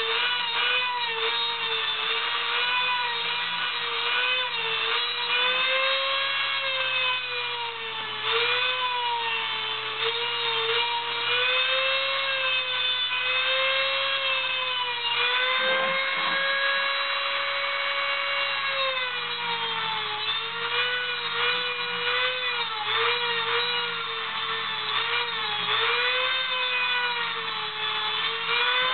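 Dremel rotary tool with a cutoff wheel grinding into the metal screws and case of a hard drive: a steady high whine that wavers and dips in pitch as the wheel is pressed into the metal, throwing sparks.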